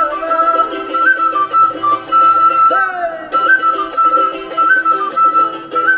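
Andean carnavalito music, instrumental here: a flute carries a stepping melody over fast, evenly strummed strings.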